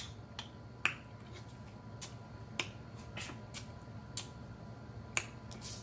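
Close-miked mouth and lip smacking while chewing seafood: a string of about ten sharp, uneven smacks, roughly two a second.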